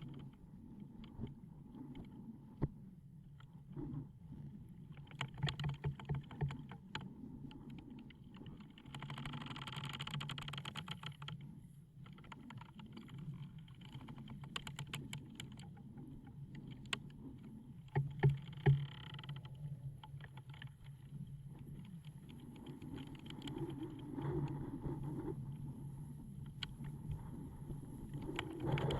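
Wooden ship's timbers creaking and ticking as they work and contract, over a low steady wind rumble. Denser runs of rapid creaking come about nine to eleven seconds in and again around eighteen seconds in.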